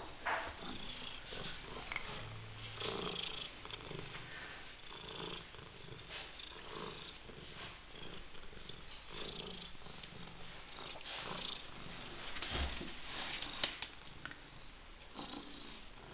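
White European shorthair cat purring close to the microphone, the purr swelling and easing in a steady rhythm of about one breath a second. A couple of brief knocks stand out, one right at the start and one about three-quarters of the way through.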